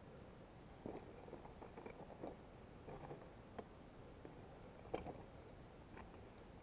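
Faint footsteps on broken brick and concrete rubble: small scattered scuffs, crunches and clicks, with one sharper knock about five seconds in.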